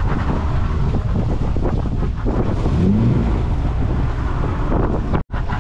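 A fishing boat's motor running at sea, with wind buffeting the microphone over the wash of the water. The sound cuts out completely for an instant near the end.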